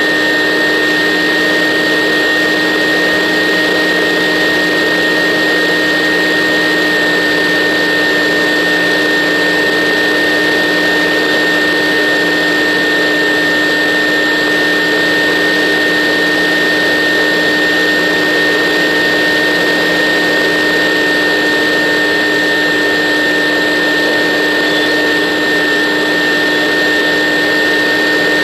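Battery-powered model aircraft's electric motor and propeller running steadily at cruise, a constant whine over rushing propeller and air noise, picked up close by the onboard camera.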